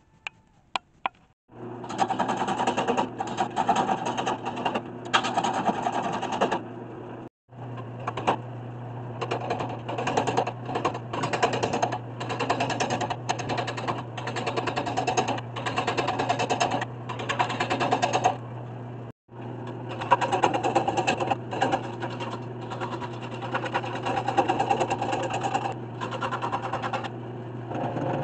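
Wood lathe running with a steady motor hum while a gouge cuts a spinning black walnut blank, the cutting coming in rapid repeated scraping strokes with short gaps. The sound cuts out completely for an instant twice, about a quarter and about two-thirds of the way through.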